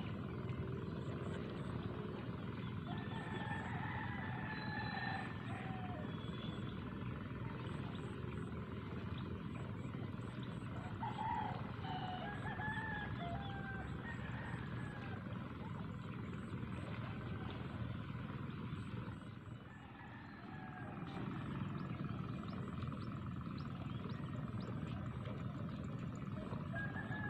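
Open rice-field ambience: a steady low rush of wind on the microphone, with scattered short bird calls and a faint, rapid high chirping repeating in the background.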